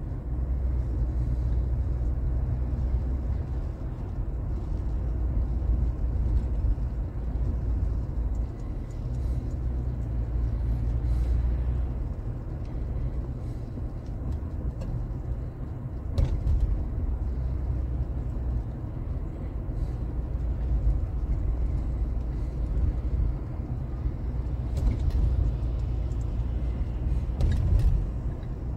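Pickup truck driving through town, heard from inside the cab: a steady low engine and road rumble.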